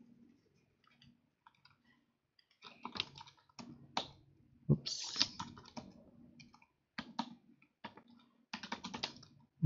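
Typing on a computer keyboard: short runs of key clicks with pauses between them, starting about two and a half seconds in.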